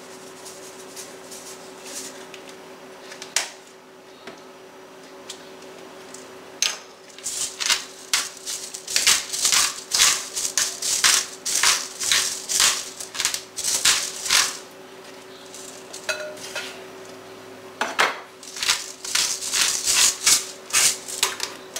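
Salt and pepper being shaken and ground over a glass bowl of diced potatoes: bursts of quick, sharp rattling strokes, several a second. A lone click comes about three seconds in, and the runs of rattling follow from about seven to fourteen seconds and again near the end.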